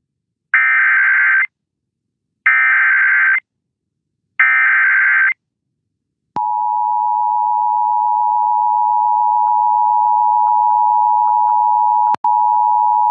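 Emergency Alert System activation: three short bursts of data tones from the digital header, then a steady, loud alert tone that starts about six seconds in and breaks off briefly near the end. It signals that a severe thunderstorm warning is about to be read.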